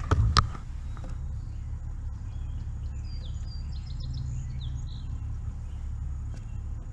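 Outdoor background: a steady low rumble, with a few small bird chirps about three to four and a half seconds in. Two sharp clicks of handling come right at the start.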